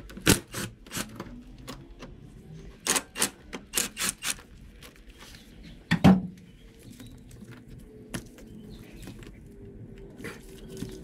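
Clicks and knocks of tools and parts being handled while hose clamps are loosened and an air intake duct is worked free, with a quick run of clicks around three to four seconds in and one heavier knock about six seconds in.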